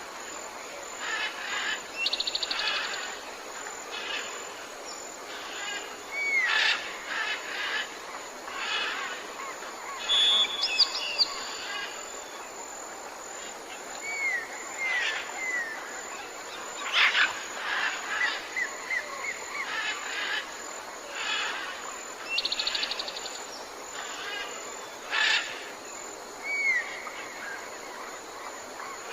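Several birds calling: a mix of short chirps, brief curved whistles and a buzzy trill that comes twice, over a steady background hiss.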